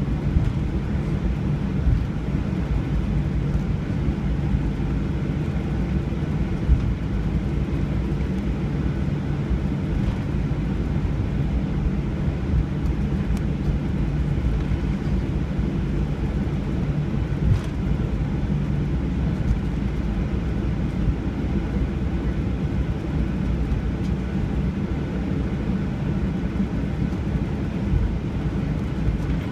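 Steady low drone inside an airliner's cabin: engine hum and rushing air, unchanging throughout.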